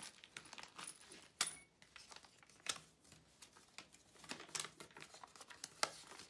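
Packaging being handled: plastic and paper crinkling and rustling, with scattered light clicks and one sharper knock about a second and a half in.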